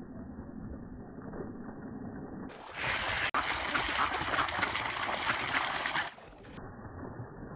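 Water jetting from a standpipe and splashing into a pond, first slowed down and muffled, then a loud, bright splashing rush from about two and a half seconds in to about six seconds, with a brief dropout a little after three seconds, before turning muffled again.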